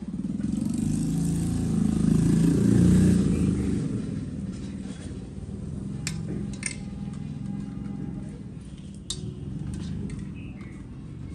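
A motor vehicle's engine passes by, growing louder to a peak about three seconds in and then fading. Later come a few sharp clinks against a steel pan as handfuls of wrung-out carrots are dropped into it.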